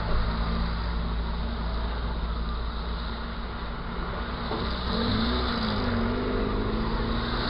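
Road traffic at an intersection: a steady low engine rumble, and from about five seconds in a passing vehicle's engine note that rises and falls as it goes by.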